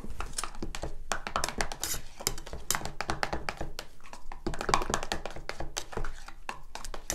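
A chopstick stirring chalk paint in a metal paint tin, with quick irregular taps and knocks against the sides of the tin and some scraping.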